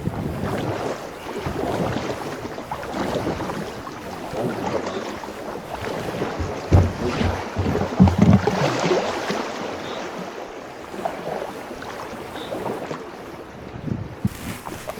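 Kayak being paddled on a flowing river: water swishing and splashing around the paddle and hull, with wind on the microphone and a few louder thumps about seven and eight seconds in.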